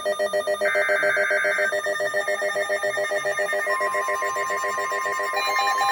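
Emergency Alert System alert tones from a NOAA Weather Radio broadcast. A roughly one-second SAME data burst comes early on, over a fast, pulsing, ringing beep pattern. About two thirds of the way in, a single steady tone near 1 kHz joins: the weather radio's warning alarm tone.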